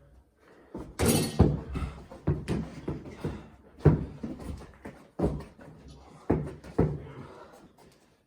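A ball in play during an indoor one-on-one basketball game: a string of irregular thuds and bangs as the ball is bounced and hits things, with the loudest, sharpest bang about a second in.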